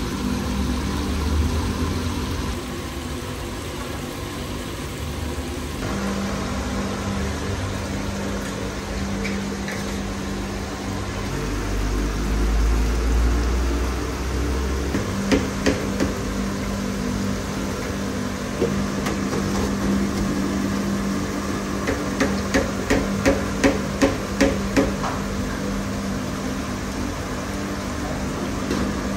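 Food-preparation work in a commercial kitchen: a steady hum of kitchen equipment, with a few sharp knocks and, near the end, a quick run of about eight even knocks, like chopping or tapping on a board or pan.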